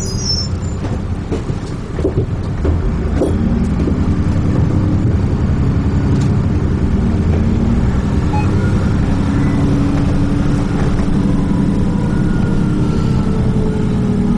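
Dennis Trident 2 double-decker bus under way, heard from inside: a steady low engine and road rumble, with a few sharp rattles and knocks in the first few seconds and a faint whine in the second half.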